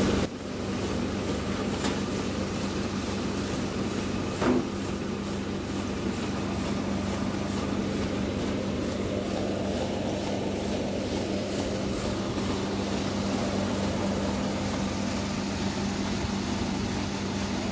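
Raisin lifting and winnowing machine running steadily and smoothly at its proper setting, a constant hum over an even blowing noise. One brief knock about four and a half seconds in.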